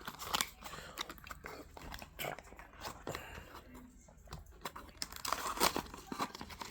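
Packaging being handled during an unboxing: irregular rustling, crinkling and small clicks and taps as the box and its wrapping are opened and sorted through.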